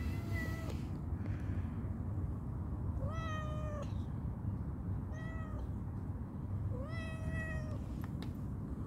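Calico cat meowing four times, each meow rising at the start and then held for about half a second to a second, begging for food. A steady low rumble runs underneath.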